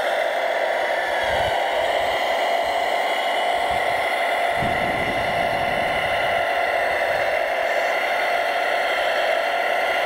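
Steady whirring whine of a radio-controlled Hidromek 640WL wheel loader model's motors and hydraulics as it drives with a loaded bucket and raises the arm.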